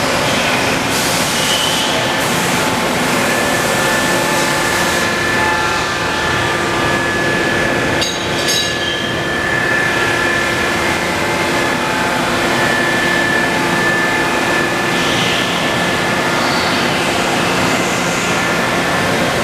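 Steady machine-shop noise: a constant loud rumble and hiss with a few held humming tones, with a brief dip about eight seconds in.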